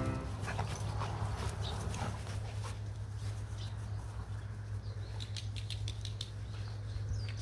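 Jindo dogs playing and moving about on dry grass: scattered rustles and light footfalls over a steady low hum.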